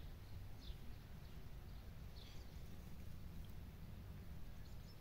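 A few short, high bird chirps over a low, steady rumble of wind.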